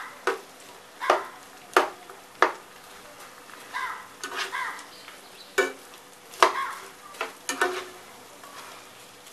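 Pieces of edible gum puffing up while deep-frying in hot ghee, with a faint steady sizzle, as a spoon stirs them round the pan. About a dozen sharp clicks and knocks come at irregular intervals.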